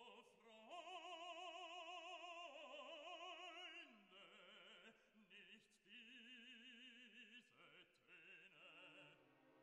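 Faint classical operatic singing over music: a voice holding long notes with wide vibrato, stepping to a new pitch every second or two.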